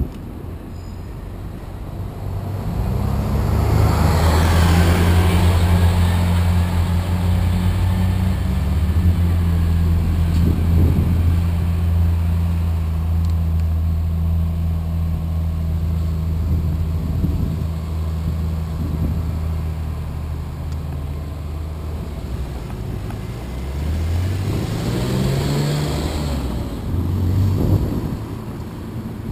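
Car engine idling close by with a steady low hum, then revving up and pulling away near the end. Two swells of rushing noise come and go, one near the start and one near the end.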